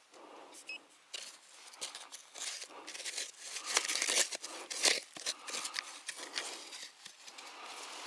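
Scratching and crunching of loose dry soil, grit and dead leaves as a handheld pinpointer is poked and dragged through the dirt. It is an irregular run of scrapes and crackles, busiest and loudest in the middle.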